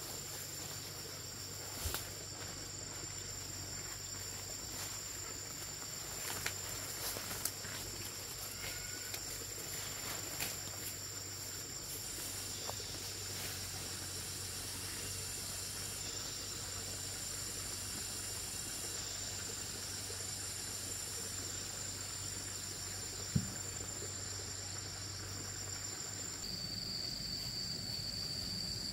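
Insects calling outdoors in a steady, high-pitched drone of two unbroken tones, the lower one shifting slightly lower near the end. A few short knocks sound through it, one sharper than the rest late on.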